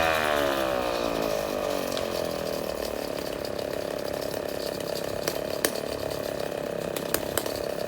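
Two-stroke chainsaw engine dropping from a rev to a steady idle over the first couple of seconds, then idling. A few sharp clicks sound in the second half.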